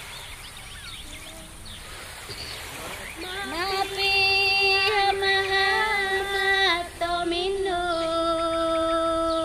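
Soundtrack music: after a quieter opening, a woman's voice comes in about three seconds in. She sings long held notes that slide from one pitch to the next.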